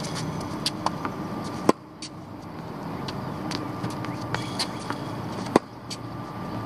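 Two sharp pops of a tennis ball struck or bouncing on a hard court, about four seconds apart, the second from the near player's racket. Under them runs a steady hum of road traffic.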